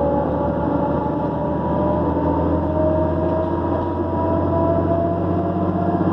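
Diesel engine of a New Flyer D40LF transit bus running under way, with a turbocharger whine over the low engine drone; the whine slowly climbs in pitch.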